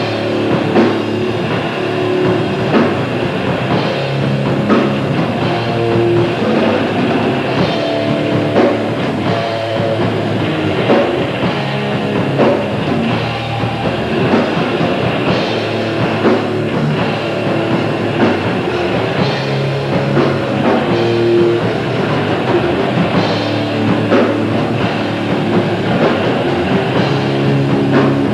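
Grindcore band playing live: heavily distorted electric guitars and bass grinding out chords that change every second or so, over fast, dense drumming.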